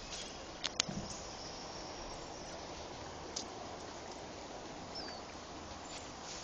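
Steady forest background hiss with a few sharp clicks in the first second and another a little past three seconds in, and a single short bird chirp about five seconds in.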